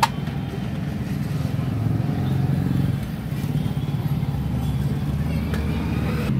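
Steady low rumble of road traffic, with a single sharp click at the very start.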